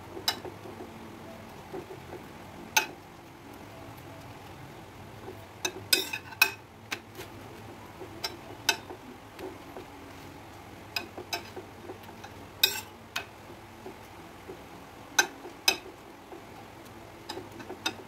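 Spatula tapping and scraping on a flat griddle pan (tawa) while a roti is pressed and turned: irregular sharp clicks, a dozen or more, some in quick pairs or clusters.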